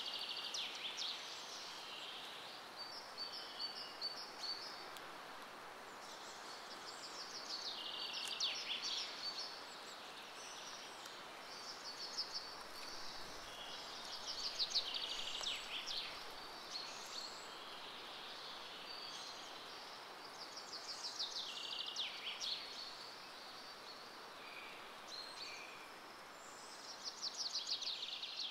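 A songbird singing, repeating short phrases of quick, falling high notes every few seconds, over a steady soft background hiss of outdoor ambience.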